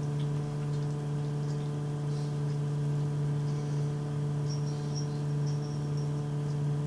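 Steady low hum with evenly spaced overtones, as of a motor or electrical appliance, with a few faint high chirps about four and a half to six seconds in.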